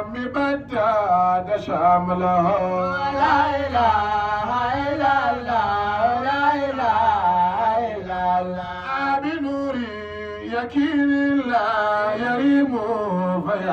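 Male voices chanting a Hausa devotional praise song (madahi) through microphones, in long held, wavering melodic lines; a lead singer and a younger singer take turns.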